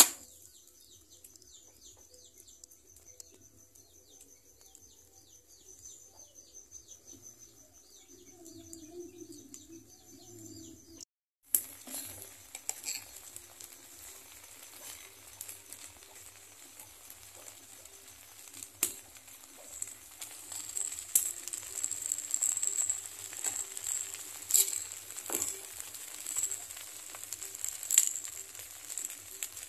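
Leaf-wrapped jil pitha sizzling on an earthenware pan over a wood fire, with scattered sharp crackles and pops that grow louder toward the end. For the first eleven seconds, before an abrupt cut, there is only a faint steady high whine with small chirps.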